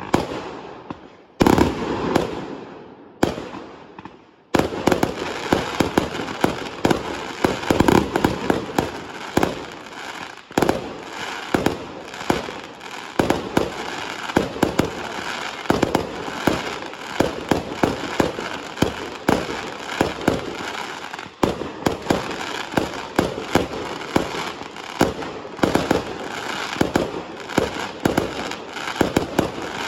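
Fireworks: a few single loud bangs, each with a long fading tail, then from about four seconds in a dense, unbroken barrage of rapid bangs and crackling.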